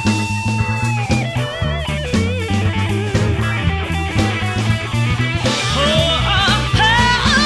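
Live band music: a lead guitar line of held, wavering notes over steady bass and drums.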